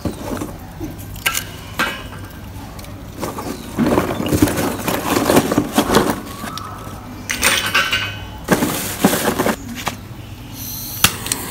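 Lumps of lump charcoal clinking and knocking together as they are handled and set down, with a plastic bag rustling and crackling in two longer stretches as more pieces are pulled out of it.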